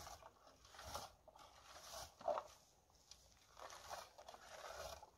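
Plastic berry-picking rake combing through blueberry bushes: faint, irregular scraping and leaf rustling in a few strokes, the loudest about two seconds in.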